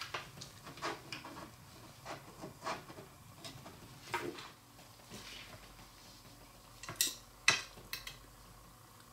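Small metal clicks and taps of screws and an Allen wrench handled against the aluminium plates of an off-axis guider and filter wheel as they are screwed together, scattered and light, with two sharper clicks about seven seconds in.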